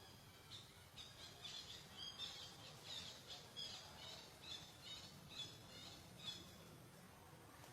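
A faint run of short, high-pitched chirps from a small animal, about two a second, stopping a little before the end.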